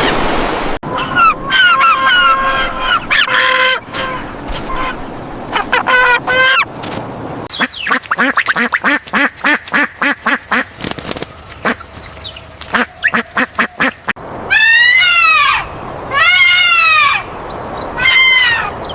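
Bird calls of several kinds in turn, with honking and quacking calls. A fast run of short repeated calls comes in the middle, and three long calls that rise and fall come near the end.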